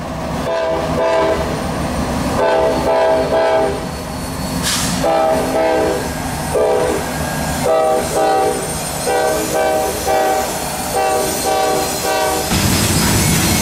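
Lead diesel locomotive of a Norfolk Southern freight, a GE C40-9W, sounding its multi-chime air horn in a long run of repeated blasts, some short and some longer. Under the horn runs the steady low rumble of the locomotives' diesel engines, which grows louder near the end.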